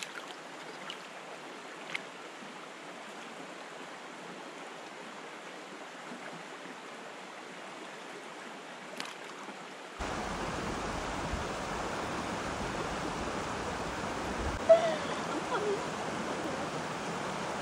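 A mountain stream rushing steadily. About ten seconds in the water sound steps up louder and fuller, and near fifteen seconds there is one sharp knock.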